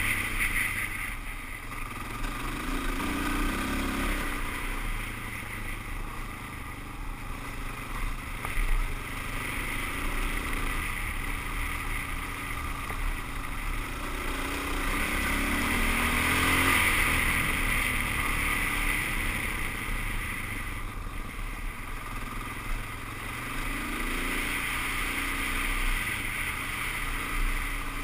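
Suzuki DR-Z400S single-cylinder four-stroke engine running as the motorcycle is ridden, its pitch rising and falling a few times with the throttle.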